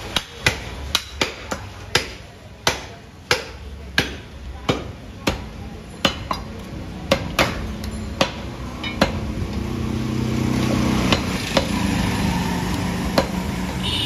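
A butcher's knife knocks against a wooden chopping block as beef is cut: sharp knocks about every half second, thinning out after about nine seconds. A low steady hum rises underneath from about ten seconds in.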